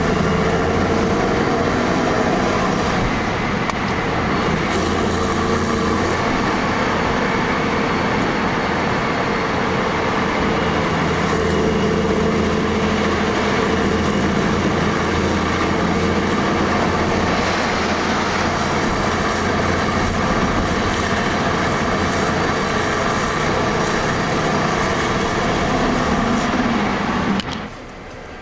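Heavy truck engine running steadily under load, a low engine drone with road noise. It drops away sharply near the end.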